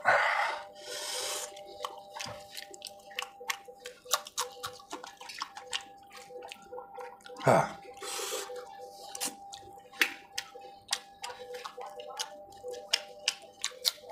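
Wet mouth clicks and lip smacks of a man eating chicken with his fingers: many short, sharp clicks throughout, with a brief falling hum from him about halfway.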